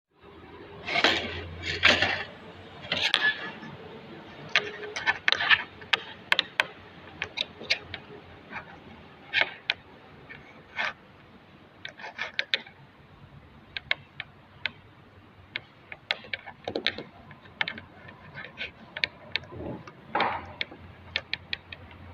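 Irregular clicks, taps and knocks of hand tools and parts being handled during repair work, busiest in the first few seconds and sparser after.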